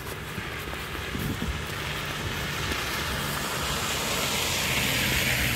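A van passing close on a wet, slushy, snow-covered road, its tyres hissing through the slush; the hiss swells from about two seconds in and peaks near the end as it goes by.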